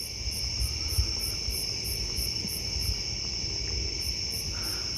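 Night insect chorus: a steady high trill, with a higher chirp pulsing about three to four times a second that drops out briefly past the middle.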